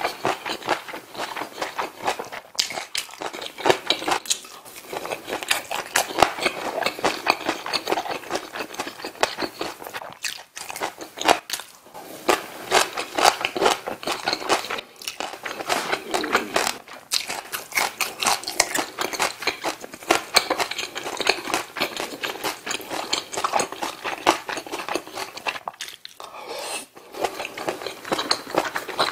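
A person chewing food with the mouth closed, close to the microphone: a dense run of small clicks with a few brief pauses.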